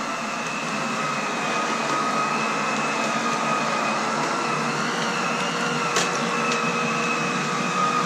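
Aerus Lux Legacy canister vacuum cleaner running steadily, a constant motor whine with a high tone over a rushing hiss, as its power nozzle is pushed over carpet. A single sharp click about six seconds in.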